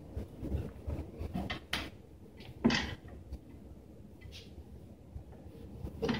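Scattered knocks and rustling of a person being shifted and repositioned on a padded treatment table, with one louder brief sound about two and a half seconds in.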